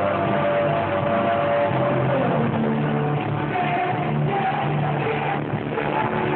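Live rock band playing with a singer, with steady bass notes under held higher notes, heard from the crowd through a phone's microphone with no high treble.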